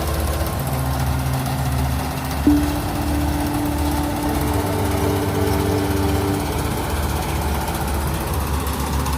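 Rice combine harvester running steadily, its engine drone with a low rumble. About two and a half seconds in a short knock sets off a steady whining tone from the machine that holds for about four seconds, with a second, higher tone joining halfway.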